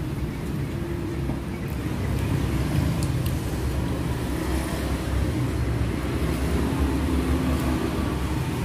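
Steady low rumble of road traffic, cars going by.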